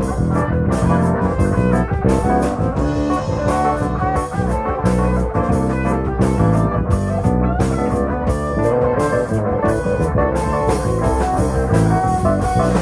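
Live blues-rock band playing: electric guitar over drum kit and keyboard, with a steady beat of drum hits.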